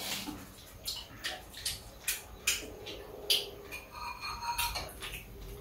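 Spoon and chopsticks clicking against bowls during a meal: a string of short, separate clicks and scrapes.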